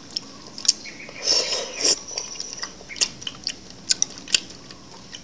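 Close-up eating sounds of ambuyat, sticky sago starch, dipped in fish soup: wet chewing and smacking, with sharp clicks scattered throughout and a louder wet stretch between about one and two seconds in.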